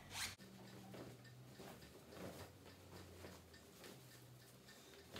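Faint rustling of a running sweatshirt's fabric as it is pulled on and over the arms, in scattered soft brushes, over near silence with a faint steady low hum.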